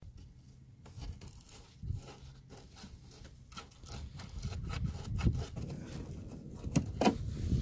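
Fingers turning a loosened tail-light mounting bolt by hand: faint scraping with scattered small clicks, and a few sharper clicks near the end.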